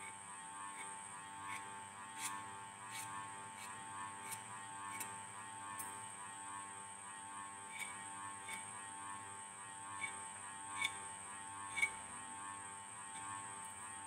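Kitchen knife cutting slits in rolled dough, its tip tapping the stone counter with each cut in a run of short taps about every three-quarters of a second, pausing briefly midway. Under it runs a steady electrical hum.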